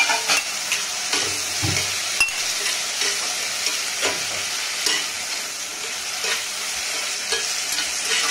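Cooked mutton pieces and onion-tomato masala sizzling in oil in a cast iron pan, stirred with a flat spatula. The steady hiss of frying is broken by scattered scrapes and knocks of the spatula against the pan.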